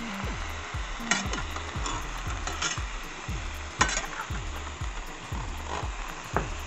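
Stir-fry sizzling in a stainless steel pan under a heap of freshly added bok choy, with a utensil scraping and knocking against the pan several times as the greens are pressed and turned; the sharpest knock comes a little before the middle.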